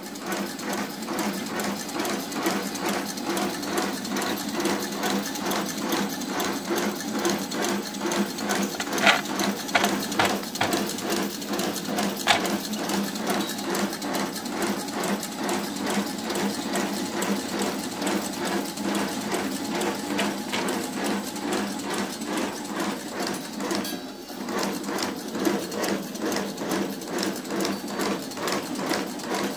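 Automatic agarbatti (incense stick) making machine running, its mechanism clattering in a fast, even rhythm as it feeds bamboo sticks through and coats them with incense paste. Two sharper knocks stand out, about nine and twelve seconds in.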